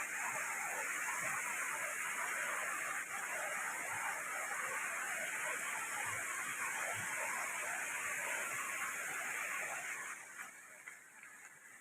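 Steady rushing of a waterfall. It falls away sharply about ten seconds in, then starts to come back near the end.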